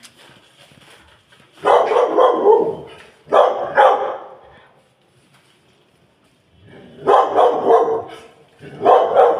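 Loud animal calls in four bursts of quick, repeated cries, two in the first half and two near the end, with quieter pauses between.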